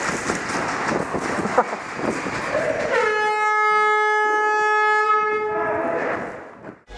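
A steady rumbling noise, then one long horn blast on a single held tone starting about three seconds in and lasting nearly three seconds, after which the sound fades away.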